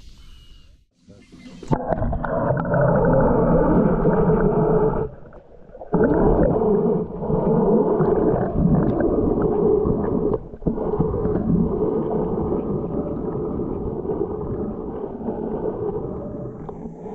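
Car engine running as the car drives, a loud steady low drone that comes in abruptly about two seconds in, drops out briefly around five seconds in and dips again just after ten seconds.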